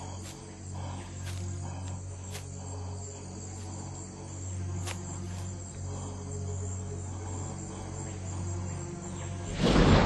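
Night insect chorus of crickets, a steady high chirring over a low steady hum, with a few faint clicks. Near the end a sudden loud rushing swell cuts in.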